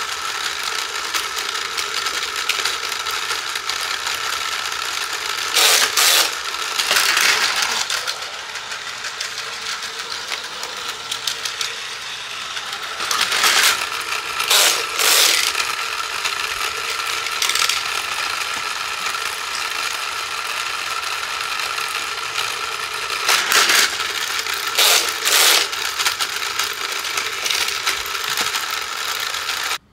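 Battery-powered Plarail toy train's motor and gears whirring steadily at one pitch, with short bursts of plastic clacking and rattling several times from the cargo terminal toy's levers and mechanism.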